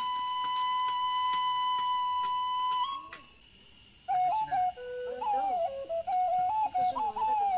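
Background music on a flute-like instrument: one long held note, a brief pause about three seconds in, then a slow melody of held notes stepping up and down.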